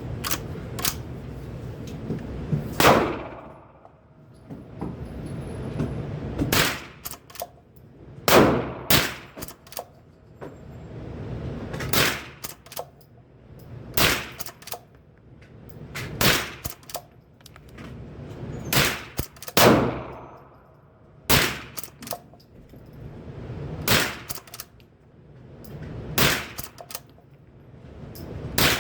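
Rossi Bravo .22LR lever-action rifle firing shot after shot, about a dozen in all, roughly one every two seconds with the lever worked between them. Each crack has a short ringing tail.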